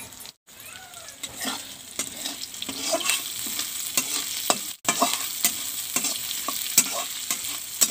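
Sliced onion, bay leaves and dried red chilli sizzling in hot mustard oil in a metal karahi, with a flat metal spatula scraping and knocking against the pan as they are stirred. The sound cuts out briefly twice.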